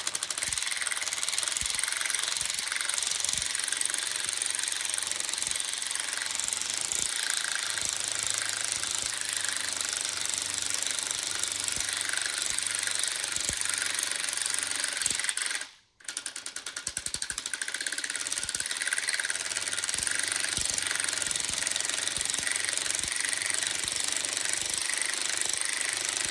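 Power drill turning the screw of a piston pin puller to press the wrist pin out of a Lycoming O-360 piston, with a continuous rapid ratcheting clatter that drops out briefly about 16 seconds in and then resumes. The ratcheting comes from the drill, not from anything wrong in the piston or pin.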